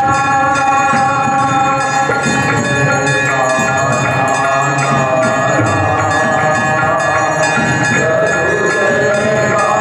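Bells ringing rapidly and continuously in an even rhythm, over sustained devotional music whose melody moves slowly.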